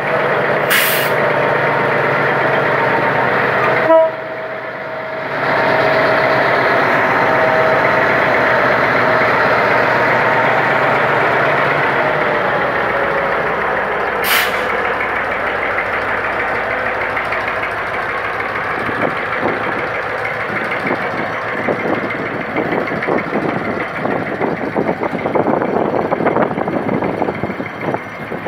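GM G22W diesel locomotive running loud under power as it pulls a passenger train away, with a short sharp sound and a brief drop in level about four seconds in. From about two thirds of the way through, the passing coaches' wheels clatter over the rails.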